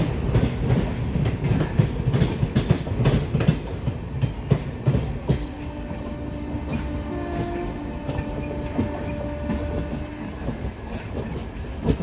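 LHB passenger coaches rolling past, their wheels clacking over rail joints over a steady rumble. A train horn sounds as a held tone for about five seconds in the middle.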